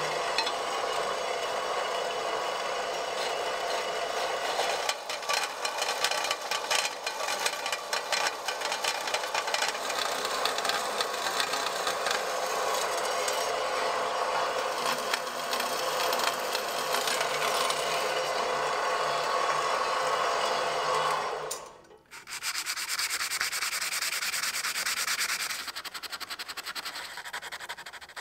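Scroll saw cutting through solid brass: a steady, rasping buzz of the reciprocating blade that cuts off abruptly about 22 seconds in. After a brief gap, a faster, finer rasp follows, then softer rubbing near the end, of abrasive paper on the brass.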